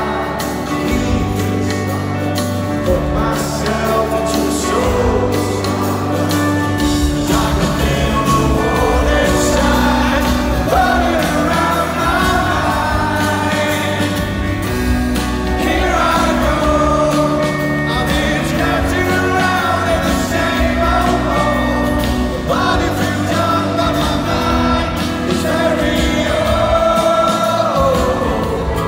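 Live band playing a song with sung vocals, loud and continuous.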